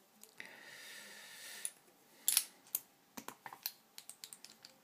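KASP high-security padlock and its picking tools being handled as the opened lock is closed: a brief scraping rub, then a sharp metallic click a little over two seconds in, followed by a run of light clicks.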